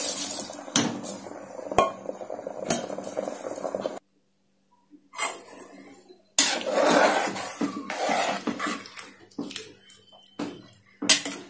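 Soaked rice poured from a steel bowl into boiling liquid in an aluminium pot, with the bowl clinking against the rim. After a second of dead silence, a metal ladle stirs and scrapes through the rice and liquid, with a few clinks near the end.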